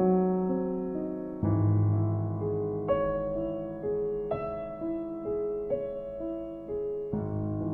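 Background music: a slow, gentle piano piece, single notes struck one after another over sustained low bass notes.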